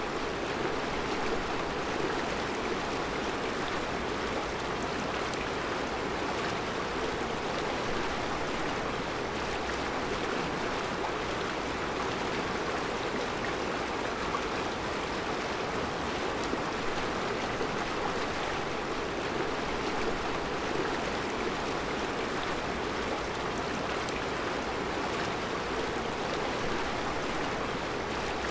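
Mountain river flowing steadily over round rocks in a rocky bed: an even, unbroken rush of water.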